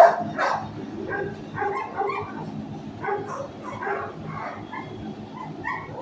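Kennelled shelter dogs barking: two loud barks right at the start, then steady, quieter barking continuing every half second or so.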